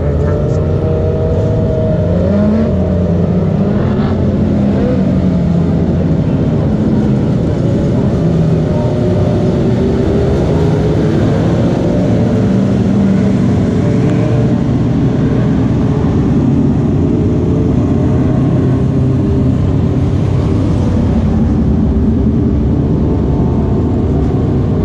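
A pack of dwarf race cars running on a dirt oval, their motorcycle engines revving steadily, with pitches rising and falling as the cars work through the turn.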